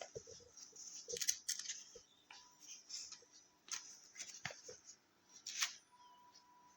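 Handling noise: irregular rustles and a string of light clicks and knocks, a louder rustle about a second in and another near the end.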